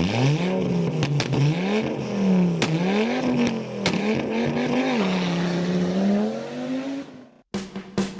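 Car engine accelerating, its pitch climbing and then dropping sharply several times as gears change, with a few sharp clicks. It fades out about seven seconds in.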